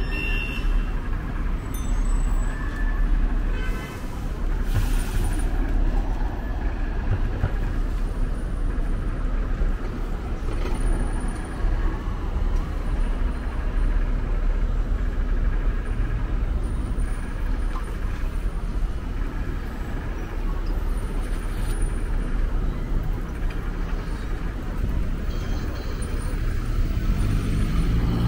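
Road traffic at a city intersection: cars, taxis, a truck and buses passing with a steady rumble of engines and tyres. There is a brief hiss about five seconds in, and a heavy vehicle's engine grows louder near the end.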